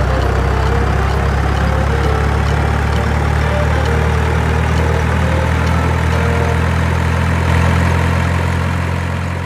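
Heavy truck engine idling steadily, a deep, even hum.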